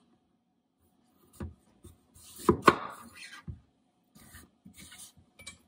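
Chef's knife cutting through a wedge of raw winter squash and knocking down onto a wooden cutting board, with a crunching cut and a sharp knock about two and a half seconds in. This is followed by lighter knocks and rubbing as squash pieces are shifted on the board.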